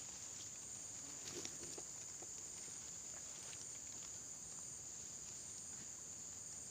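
Steady high-pitched chorus of insects, with a few faint light clicks about a second in.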